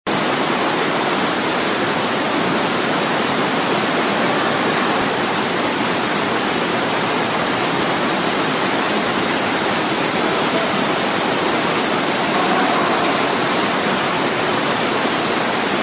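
FlowRider wave simulator's sheet of water pumped up over the padded ride surface, a steady, unbroken rush of water.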